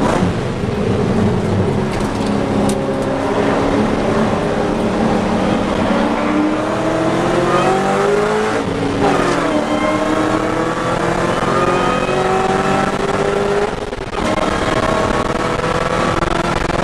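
Ford Mustang engine accelerating hard under racing load, heard from inside the cabin, its pitch climbing steadily through each gear. It upshifts about nine seconds in and again about fourteen seconds in, each time dropping in pitch, with a brief dip in loudness at the second shift, before climbing again.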